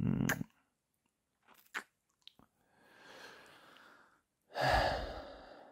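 Close-miked kissing and wet mouth sounds from a man: a loud smack at the start and a few small lip clicks, then a soft inhale and a heavy breath out near the end.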